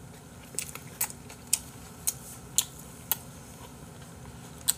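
Chewing a mouthful of crunchy food, with a sharp crunch about every half second.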